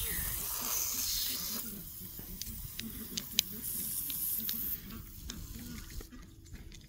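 Pressurised water hissing as it sprays from a slit in a garden hose past the edge of a worm-drive hose clamp. It comes in two spells and cuts off about five seconds in as the clamp is tightened. Between and after the spells there are light clicks of a nut driver turning the clamp's screw.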